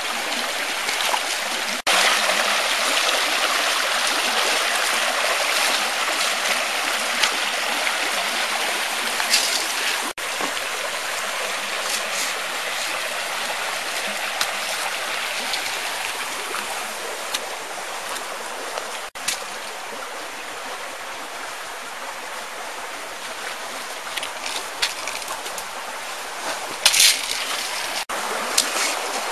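Shallow creek running over stones, a steady rushing hiss, with a few sharp clicks and knocks near the end.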